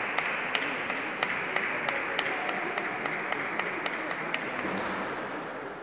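Table tennis balls clicking on tables and bats from rallies in the hall, short irregular clicks over a steady background noise; the noise drops a little near the end.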